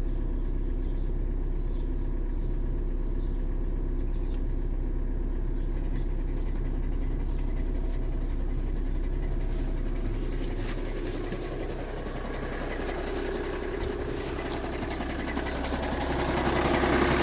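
2013 VW Jetta TDI's 2.0-litre four-cylinder turbodiesel idling in park with a light knocking, which the owner puts down to a stretched timing belt and a failing tensioner throwing the timing off. The engine note dips slightly about ten seconds in and grows louder near the end.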